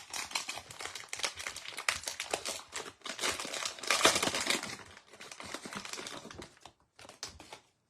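Wrapper of a Panini Chronicles baseball card pack crinkling as it is torn open and pulled off the cards. It is loudest about four seconds in, dying down to a few last crinkles near the end.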